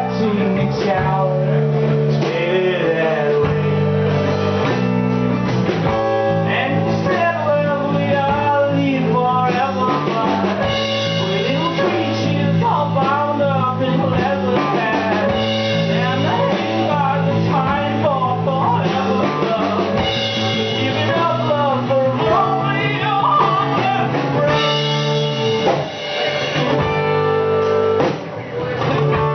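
A rock band playing live: electric guitar, bass and drum kit with a singer's voice over them.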